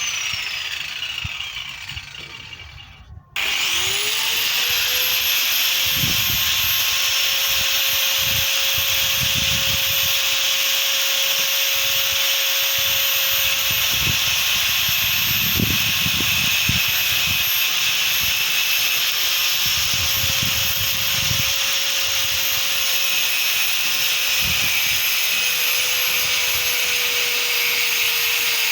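Angle grinder winding down during the first few seconds, then switched on again about three and a half seconds in and spinning up to a steady high whine. The disc bites into a hardwood plank in irregular rough surges as rings are cut freehand, and the pitch sags slightly under load near the end.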